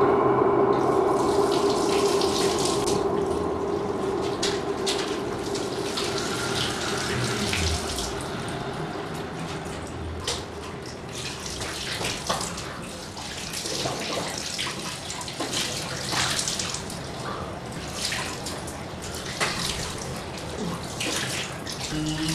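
Water running from a tap into a bathroom washbasin as a man washes his face and hands under it, with scattered splashes and small clicks. A low steady tone fades away over the first several seconds.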